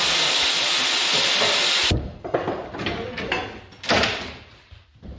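A loud steady rushing noise from a machine such as a blower or vacuum cuts off suddenly about two seconds in. Scattered knocks and clatter follow, the loudest about four seconds in.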